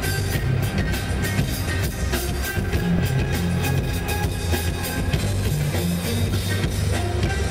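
A live band plays a loud rock-styled pop song, led by a steady drum-kit beat with heavy bass and guitar.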